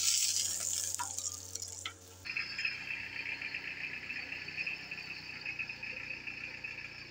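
Flatbread sizzling on a hot pan over a gas stove, a bright hiss for about two seconds. It then cuts abruptly to a steady, high-pitched droning sound with a faint low hum underneath.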